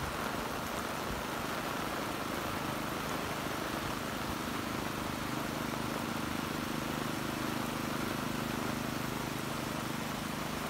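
Heavy rain pouring onto a road and cars, a steady hiss, with a car engine's low hum joining in from about four seconds in.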